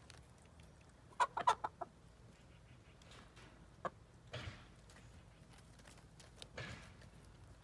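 Hens clucking: a quick run of short clucks about a second in, then a single cluck and two longer, rougher calls spread through the rest.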